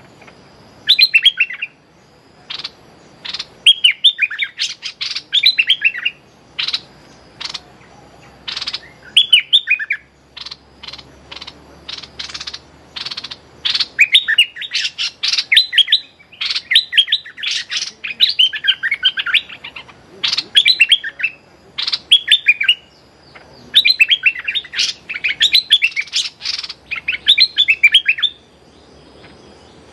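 Caged decoy bulbul singing short bubbly phrases of quick warbled notes again and again, mixed with single sharp call notes.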